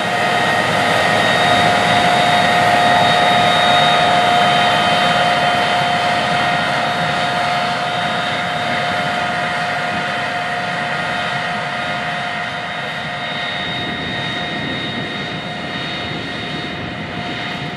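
Case IH Quadtrac 620 tractor's diesel engine running steadily under heavy load, pulling a strip-till bar through the soil, with a steady high whine over the engine noise. It is loudest a few seconds in, then slowly fades as the tractor moves away.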